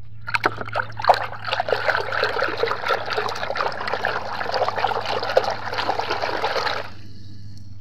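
Water splashing and swishing in a basin as a hand scrubs a toy under the surface. It stops about a second before the end.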